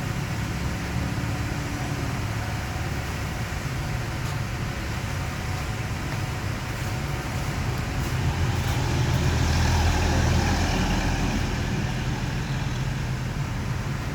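Car driving: steady engine and road noise, swelling louder about two thirds of the way through, then easing.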